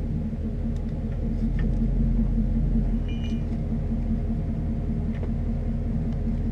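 A motor vehicle's engine running steadily, a low even drone with a few faint ticks over it.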